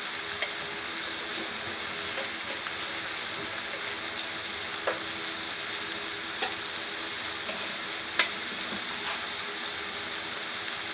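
Onions, tomatoes and green chillies sizzling steadily as they fry in a pan, with a few sharp crackles along the way.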